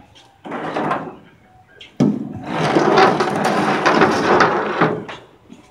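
Steel wire rope being hauled and dragged over a barge's steel deck: a short scrape near the start, then a louder, rattling scrape that starts sharply about two seconds in and lasts nearly three seconds.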